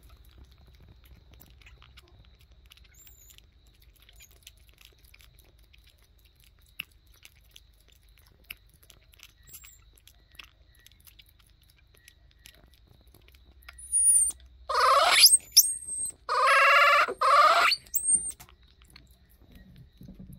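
Baby vervet monkey sucking on a milk bottle teat, with faint soft clicks. About 14 seconds in come four or five loud, high-pitched squeals in quick succession.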